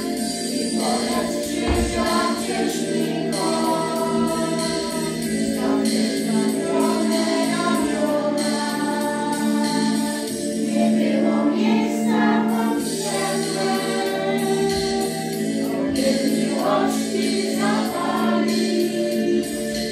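A choir singing slow music with long held notes over a steady low accompaniment.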